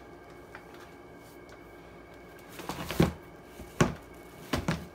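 Handling noises: items being moved and set down, a few short knocks and rustles starting about two and a half seconds in, the sharpest knock a little before four seconds and two more near the end.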